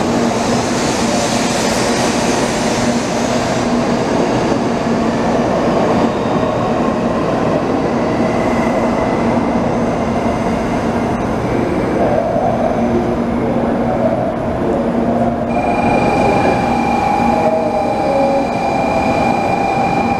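Shinkansen bullet train moving along a station platform: a steady rush of running noise with a low hum. About fifteen seconds in, a steady high-pitched tone starts and holds.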